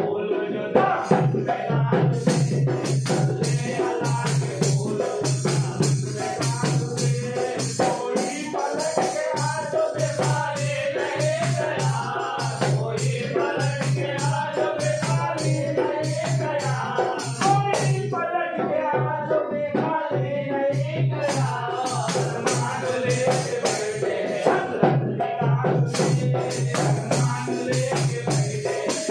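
Men's voices singing a devotional recitation together, with sharp percussive taps keeping a beat.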